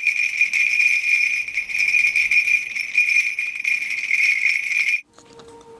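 Small bells jingling steadily, shaken without a break, then stopping abruptly about five seconds in.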